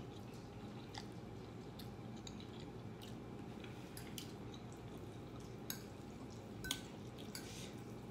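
Quiet chewing and wet squishing of saucy noodles, with a few light clicks of a metal fork against a glass bowl as the noodles are stirred. The clearest click, a little before the end, rings briefly.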